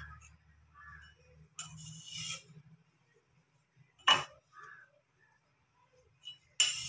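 Broad steel knife scraping across a stone countertop as it slides raw dough pieces onto a perforated steel spoon, in short scrapes with a sharp metal clink about four seconds in.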